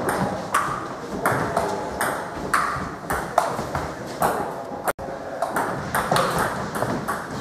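Table tennis rally: the ball clicking off rubber paddles and bouncing on the Stiga table top in a quick, fairly regular run of sharp ticks.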